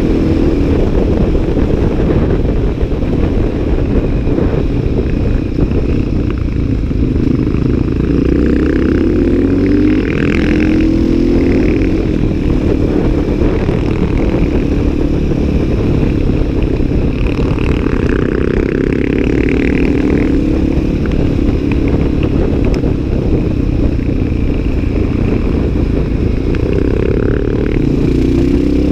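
Supermoto motorcycle engine running at speed, heard from the bike under heavy wind rush; the revs rise and fall several times as the rider accelerates.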